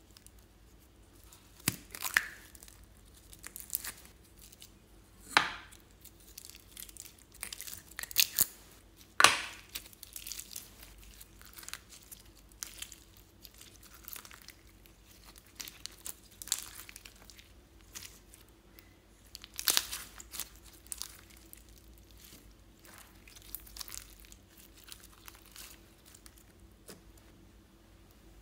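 Slime handling: plastic slime containers being opened and a clear slime full of foam beads squeezed and pulled out, giving irregular sharp crackles and pops with quieter sticky tearing and rustling between.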